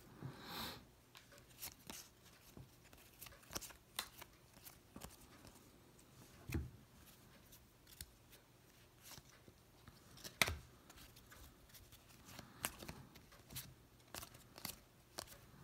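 Football trading cards being handled and flipped through one at a time: soft slides of card against card and scattered light taps, with a short rustle as the stack comes out of the pack wrapper at the start and one sharper tap about ten seconds in.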